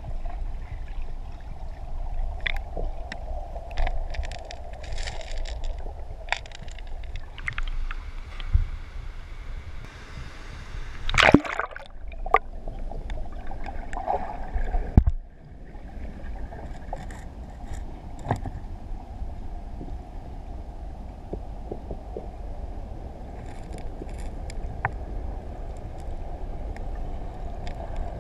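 Muffled underwater rush of moving water heard from a submerged camera, with scattered small clicks and bubble pops. Two louder knocks stand out, about 11 and 15 seconds in.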